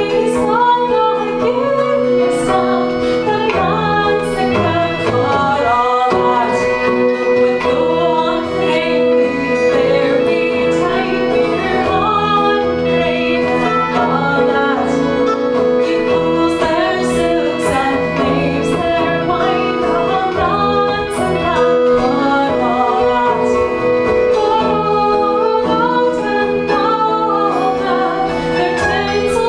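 Live Celtic band music with a woman singing over held low notes and a steady beat.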